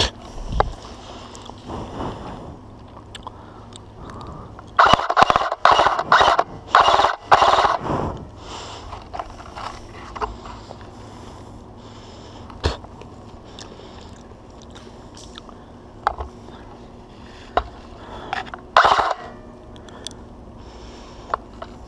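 Footsteps running through grass and leafy undergrowth, with a run of loud, irregular crunching strokes about five to eight seconds in and another near the end. A few single sharp clicks fall in the later, quieter part.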